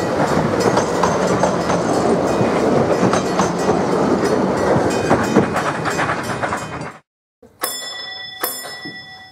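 Vintage passenger carriages of a steam train rolling past, wheels clicking over the rail joints as the train moves away. After a cut about seven seconds in, a signal-box instrument bell strikes twice and rings on.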